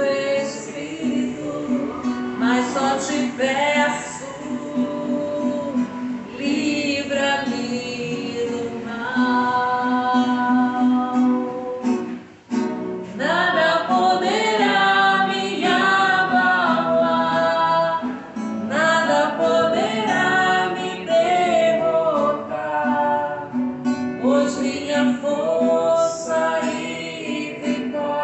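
Music: a woman singing a worship song over a strummed acoustic guitar.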